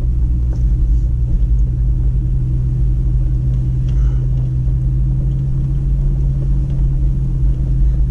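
Toyota Tacoma pickup driving on a dirt and gravel mountain trail, heard from inside the cab: a steady low engine and tyre rumble, with a few faint clicks.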